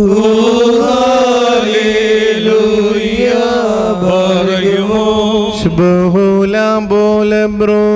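Orthodox Syrian liturgical hymn chanted in Malayalam over a steady held low note. The melody moves in long, gliding notes, then in quicker, shorter syllables near the end.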